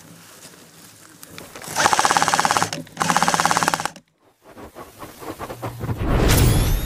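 Two bursts of full-auto airsoft rifle fire, each about a second long, a rapid even rattle of shots. After a short break, a loud swelling noise with falling tones comes in near the end.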